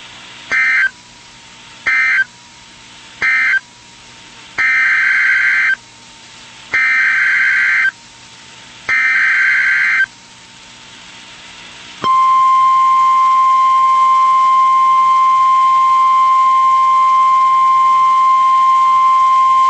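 NOAA Weather Radio Emergency Alert System data bursts. First come three short, buzzy SAME end-of-message bursts. Then come three longer SAME header bursts that announce the next warning. About twelve seconds in, a loud, steady single-pitch weather radio warning alarm tone starts and holds.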